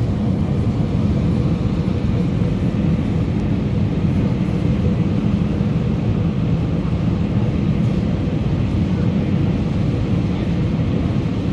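Steady in-flight cabin noise of an Airbus A319, heard at a window seat over the wing: an even, low-pitched rush of jet engine and airflow noise with a faint steady hum.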